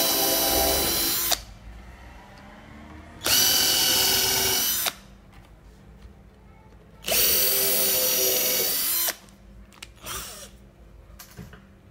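Cordless drill boring angled 45-degree holes into a wooden chair frame, its motor running at a steady pitch in three runs: the first stops about a second in, then two more of about two seconds each follow.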